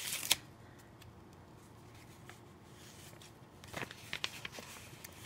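Faint handling of paper and stickers on a planner page: a couple of soft rustles at the start, then a short cluster of light clicks and rustles a little under four seconds in.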